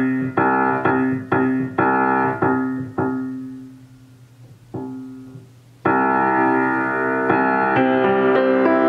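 Grand piano strings sounding harmonics: a key struck over and over, about twice a second, while a finger rests lightly on the string at a node so it rings as one overtone of the harmonic series. The notes die away about three seconds in. About six seconds in, a fuller piano sound begins, with notes changing near the end.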